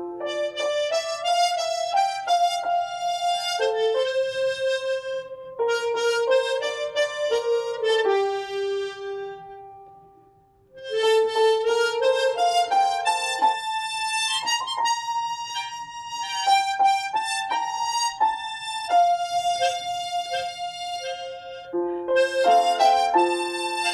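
Harmonica playing a slow melody with chordal notes. It fades out almost completely about ten seconds in, then comes back in.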